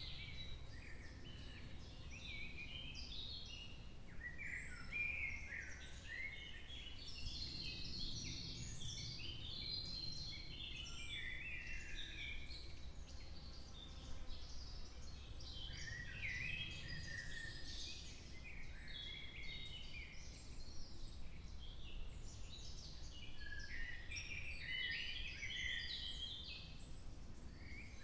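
Several songbirds singing and chirping in woodland, many short, quick notes overlapping, over a steady low background rumble.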